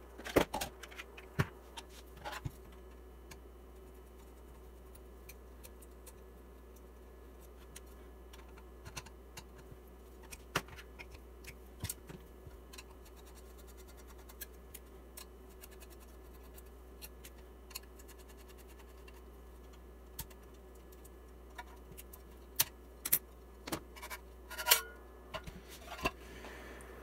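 Scattered small clicks, taps and scrapes of a metal-cased USB oscilloscope being taken apart by hand: its end cover plate coming off and the circuit board sliding out of the case. The clicks come in a cluster at the start, thin out, then bunch again near the end.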